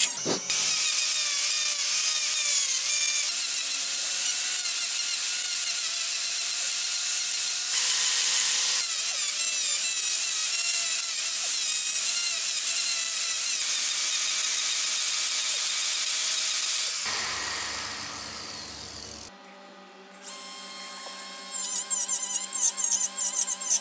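High-speed rotary tool with a small burr bit carving into wood: a steady high whine and hiss whose pitch wavers as the bit bites. It fades out about three quarters of the way through, falls almost silent briefly, and picks up again near the end.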